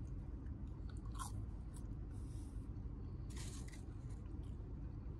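A person chewing a mouthful of fried chicken nuggets, a few short crunchy, moist mouth noises over a low steady room hum.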